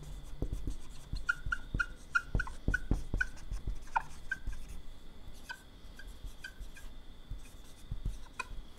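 Marker writing on a whiteboard: runs of short squeaky strokes and light taps of the tip as words are written.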